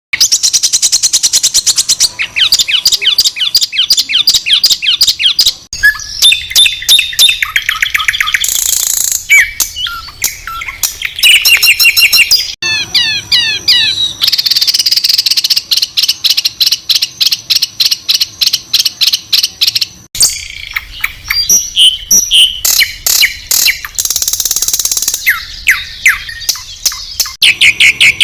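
Songbirds singing loud, high-pitched, harsh rapid repeated notes, trills and chatters: the 'tembakan kasar' (harsh burst) phrases of a bird-song tutor recording. The phrases switch abruptly every few seconds.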